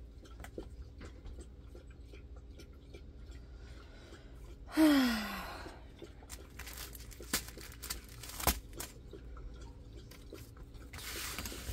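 A puppy whines once about five seconds in, a short cry sliding down in pitch, as it wants to go outside and play. Small handling clicks come before and after it, and plastic packaging crinkles near the end.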